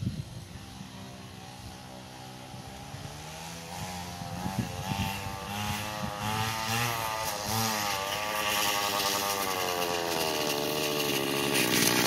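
Goped GSR40 scooter's small two-stroke engine revving as it rides closer, growing steadily louder. Its pitch rises and falls with the throttle and climbs overall toward the end.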